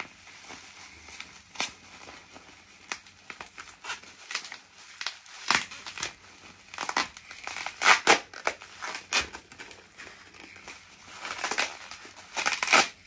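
Bubble wrap crinkling and rustling as it is pulled and peeled off a stack of wrapped plates. Irregular sharp crackles come in clusters, loudest a little past the middle and again near the end.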